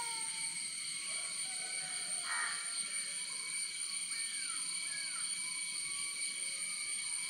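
Birds calling in short whistled chirps, with one harsher call about two and a half seconds in, over a steady high-pitched insect drone.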